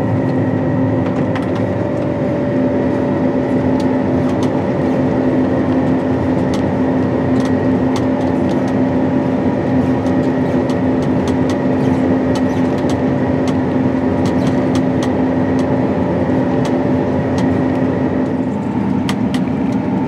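Steady drone of a John Deere S790 combine heard from inside its cab while harvesting: engine and threshing machinery running at a constant working pace, with a steady hum over a rushing noise and a scattering of faint light ticks.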